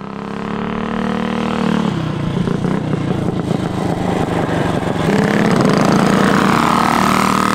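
Minibike engine running and revving, fading in at first, its pitch dropping about two seconds in and climbing again to a rising whine near the end.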